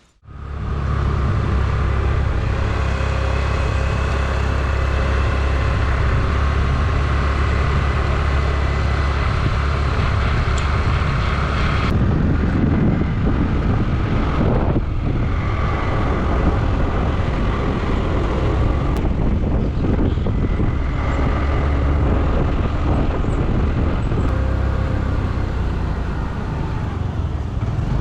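Motor vehicle engine running steadily, with road noise, while driving up a road.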